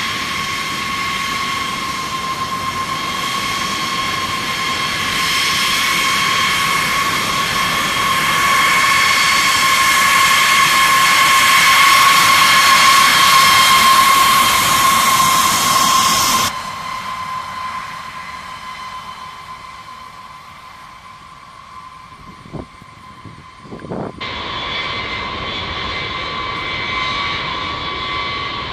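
B-52H Stratofortress's TF33 turbofan engines whining at taxi power: a steady high whine of several stacked pitches over a rushing hiss, swelling to its loudest past the middle. About two thirds of the way through it drops abruptly to a fainter whine with two brief clicks, then comes back stronger near the end.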